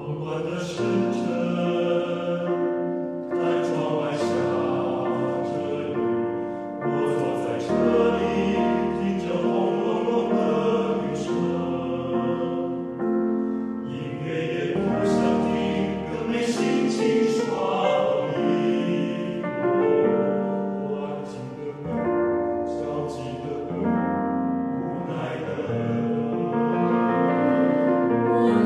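Chamber choir singing a song in Chinese with piano accompaniment, the voices entering at the start over the piano.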